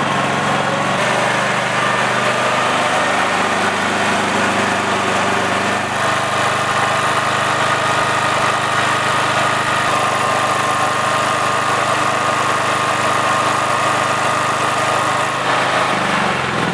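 Honda GX390 single-cylinder generator engine running steadily at its governed speed with no load, turning just over 3000 rpm instead of the 3600 rpm it should: the engine speed is set too low. Near the end it is switched off and its pitch starts to fall.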